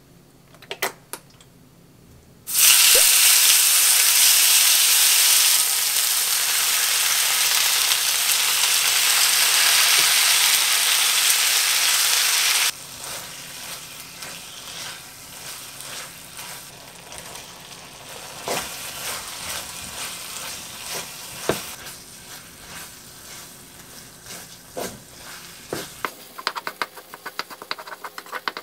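Food frying in a hot oiled nonstick pan: a loud sizzle starts suddenly about two and a half seconds in and drops to a quieter sizzle about ten seconds later. Through the quieter part a wooden spatula scrapes and taps the pan as the red-sauced chicken and vegetables are stirred.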